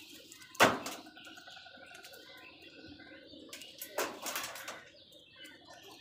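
House crows cawing: one loud, harsh caw just over half a second in, then a short run of caws about four seconds in, with fainter bird calls between them.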